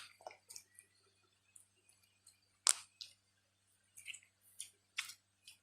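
Honey slime being kneaded and squeezed by hand: irregular small sticky clicks and squelching pops, the loudest a little under three seconds in.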